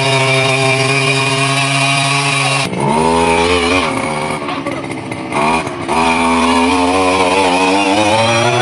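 Small engine of an areca-palm climbing machine running at steady high revs. After a cut about a third of the way in, its revs dip and pick up twice before settling back to a steady run.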